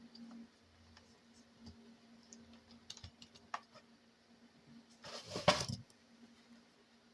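Small plastic clicks and scraping as parts of a Traxxas Slash 4x4 RC truck are wiggled into place by hand, with a louder scraping rattle about five seconds in.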